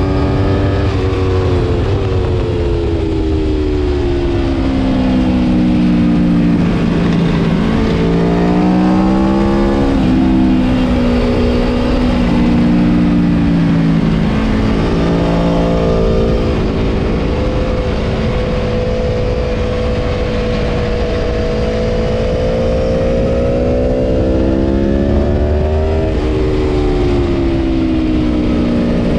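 Aprilia Tuono V4 Factory's V4 engine at racing speed, its pitch falling under braking and downshifts and climbing again through the gears, with a long steady pull in the middle and a drop near the end. Heavy wind rush on the microphone throughout.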